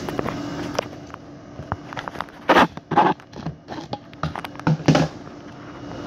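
Ninja blender's screw-on blade base being twisted off its plastic cup by hand: plastic scraping and clicking, with louder rasping scrapes about two and a half, three and five seconds in.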